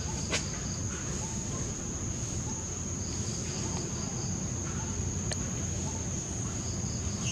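Steady high-pitched insect drone, with two short runs of pulsed chirps, one in the middle and one near the end, over a constant low rumble. A sharp click about a third of a second in.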